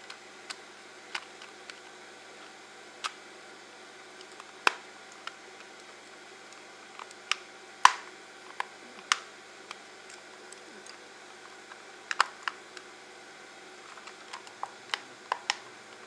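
Irregular sharp plastic clicks and snaps from a Logitech MX mouse's shell being squeezed and worked back together by hand, the halves not yet seating properly. The loudest snap comes about eight seconds in.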